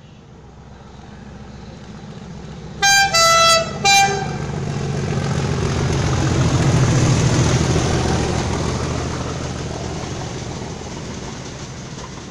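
Class 37 diesel locomotive 37884 sounding its three-tone horn in three short blasts, high, low, high, about three seconds in. Then its English Electric V12 engine and the train's wheels on the rails pass close by, loudest around seven seconds in and fading away.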